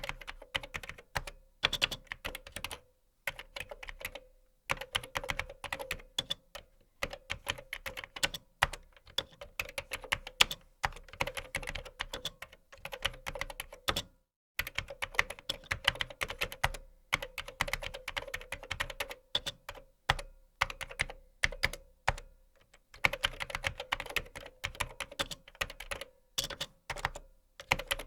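Typing on a computer keyboard: quick runs of keystrokes clattering, broken by brief pauses a few times.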